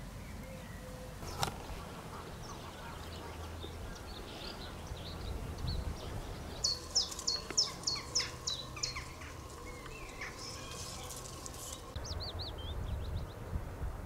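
Birds calling and singing in open country: scattered chirps, with a quick run of about eight falling notes midway, over a low steady rumble of wind.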